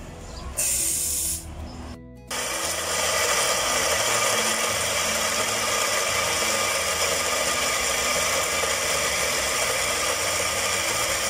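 Electric coffee grinder grinding roasted beans for an espresso shot: a short burst near the start, then a long, steady grind from about two seconds in.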